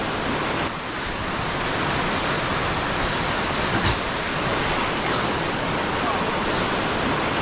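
Whitewater rapids rushing over rock ledges: a loud, steady, unbroken water noise.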